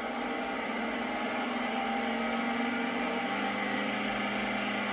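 Simulated truck engine sound from the Arduino-driven model truck's small speaker, running steadily with a thin, bass-less tone. Its note steps down slightly about three seconds in.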